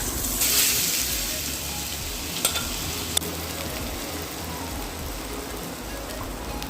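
Food frying in hot oil: a steady sizzle, loudest just after the start, with two sharp taps a little under a second apart in the middle.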